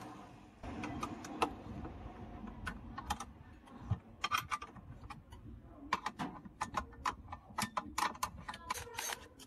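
Irregular metallic clicks and clinks of tools and screws being worked against the washing machine's metal parts while its motor is taken out, coming more thickly in the second half.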